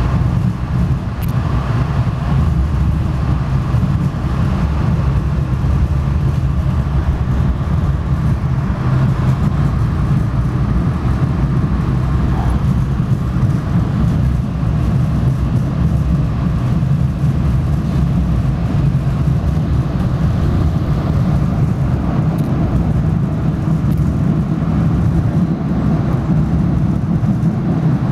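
Steady low rumble of an MBTA commuter rail train running along the track, heard from inside the passenger coach.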